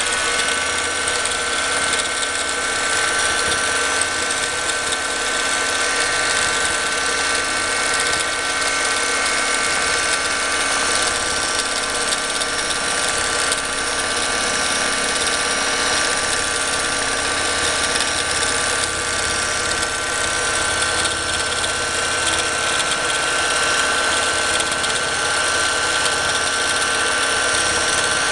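Longarm quilting machine stitching steadily: its motor runs with a constant high whine over the mechanical chatter of the needle and hopping foot.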